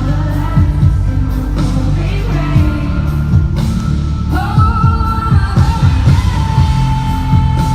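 Loud live pop music through an arena sound system: a heavy drum beat under a woman's singing voice, which holds a long sustained note in the second half.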